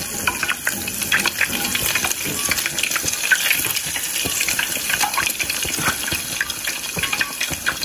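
Egg-soaked bread slices frying in hot oil: a steady sizzle with many small crackles and pops.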